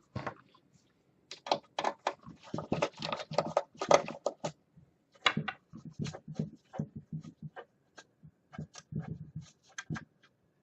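Screwdriver backing screws out of the base of an MP Select Mini 3D printer: a run of irregular small clicks and scrapes of metal on metal and plastic, thickest in the first half and thinning out later.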